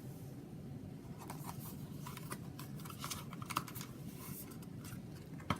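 Light rustling and scattered small clicks of paper leaflets and cardboard packaging being handled, with one sharper click near the end.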